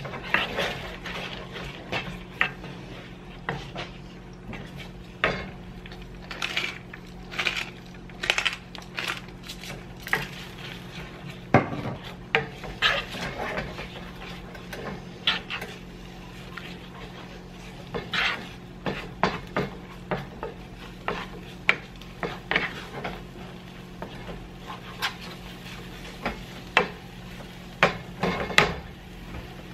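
Wooden spatula stirring and scraping scrambled eggs around a frying pan, in irregular scrapes and knocks against the pan, over a steady low hum.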